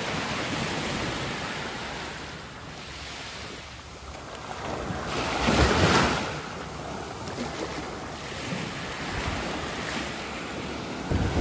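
Ocean surf washing in at the shore, with one louder wave surging about halfway through, and wind buffeting the microphone.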